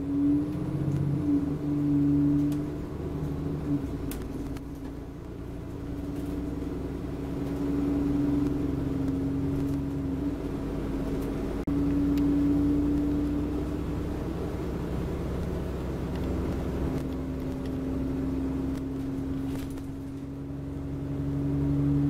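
Alexander Dennis Enviro400 double-decker bus on a Trident chassis under way, heard from its upper deck: the engine and drivetrain running with a continuous low rumble and a steady humming whine.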